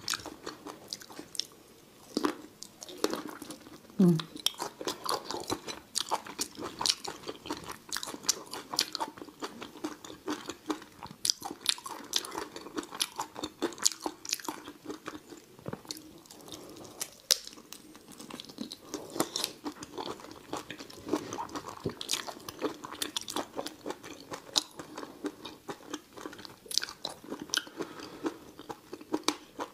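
A person chewing and biting into raw chili-coated prawns: wet, irregular mouth clicks and crunches, thick and steady throughout.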